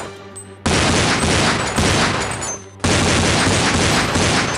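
Rapid automatic gunfire in two long bursts: the first starts under a second in and breaks off just before three seconds, and the second follows at once. It is a gunfire sound effect laid over a toy blaster being fired.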